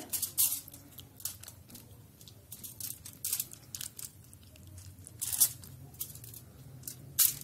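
Aluminium foil crinkling and rustling irregularly as a hand pats and spreads a wet fish mixture across it, with the loudest crackles about three and five seconds in and just before the end.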